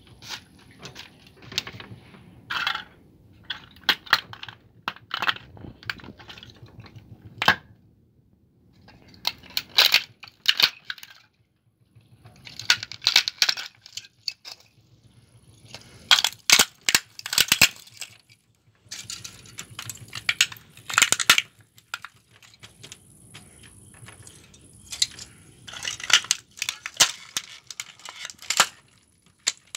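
Plastic model truck kit being crushed under flip-flops: bursts of cracking and crunching plastic with small pieces clinking, coming in clusters a few seconds apart with short quiet gaps between.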